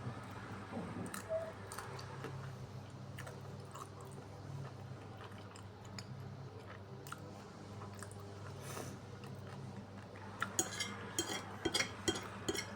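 Close-up chewing and wet mouth sounds of a person eating, a scatter of small clicks that thickens into a quick run of sharper smacks near the end, over a steady low hum.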